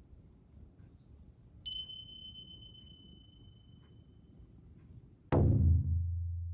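Edited-in sound effects: a bright chime ding about two seconds in that rings and fades, then a sudden loud, deep hit near the end that leaves a long, low, slowly fading boom.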